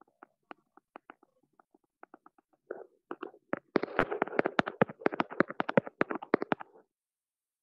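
A series of short, sharp clicks or taps: a few every second at first, then a fast, irregular flurry from about three and a half seconds in that stops abruptly near the end.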